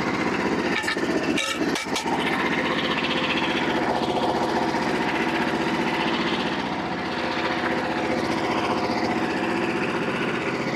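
Small 13.5 hp gas engine of a band sawmill idling steadily, with a few sharp knocks about one to two seconds in.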